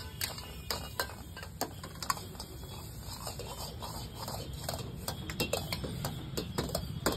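Two steel ladles striking and scraping a wok as fried rice is tossed, in repeated sharp clanks a few times a second, growing denser near the end. Beneath them a gas burner's flame runs with a steady low rumble.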